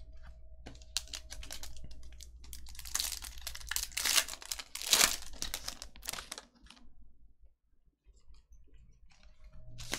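Foil wrapper of a Bowman baseball card pack crinkling and tearing as it is ripped open by hand, loudest about three to five seconds in. After that it dies down to faint clicks of the cards being handled.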